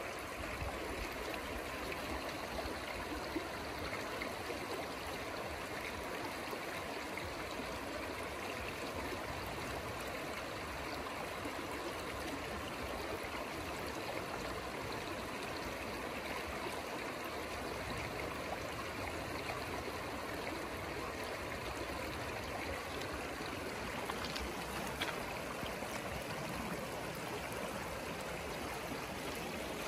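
River water flowing steadily, with a couple of faint clicks late on.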